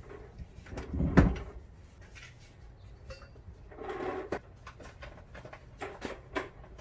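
Knocks and clatters of parts being handled, the loudest about a second in, more around the middle, and a few sharp clicks near the end.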